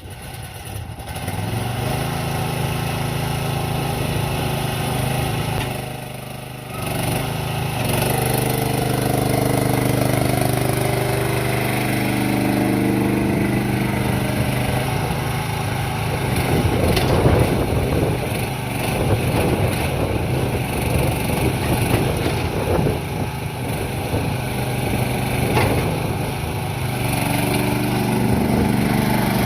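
Diggit EM15 mini excavator's engine running, its pitch rising and falling several times. It drops briefly about six seconds in.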